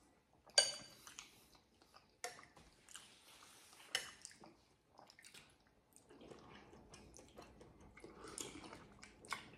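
A person eating a soupy chicken curry with a spoon: soft chewing and wet mouth sounds, with a few short sharp clicks of the spoon against a bowl.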